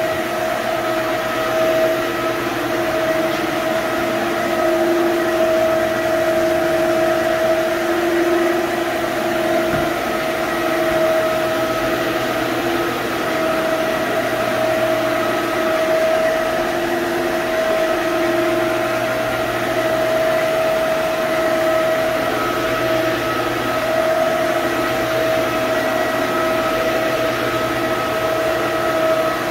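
Electric floor-scrubbing machine running steadily as it is pushed over a wet hardwood floor: a continuous motor hum and whine that swells and dips slightly in strength.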